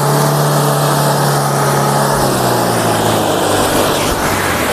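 Off-road 4x4 vehicle's engine running in a steady drone as it drives the mud-race track, its note sinking a little from about halfway through, over a constant rushing noise.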